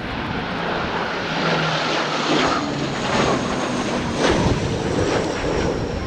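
Twin-engine turboprop airliner flying past overhead: a steady, rushing engine and propeller drone with a faint high whine, growing louder over the first second or two.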